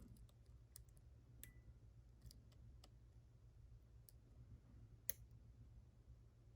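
Faint, scattered metallic clicks of a lock pick and tension wrench working the pin tumblers inside a lock cylinder, with one sharper click about five seconds in.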